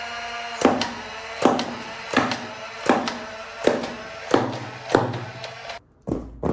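Intro music with sustained tones and a sharp percussive hit about every three-quarters of a second; it drops out briefly near the end before the beat picks up again.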